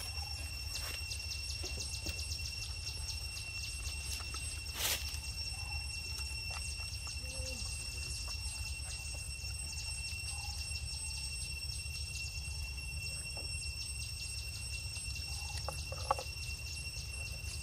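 Steady high-pitched drone of evening insects with a fast pulsing buzz, over a low rumble. A few faint short squeaks come and go, with a sharp click about five seconds in and another near the end.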